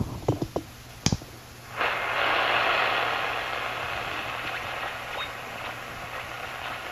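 A few clicks from the Heathkit SB-310's front-panel switches and knobs, the loudest about a second in. Then shortwave receiver static comes up from its speaker at just under two seconds and holds as a steady hiss while the main dial is tuned around 15 MHz.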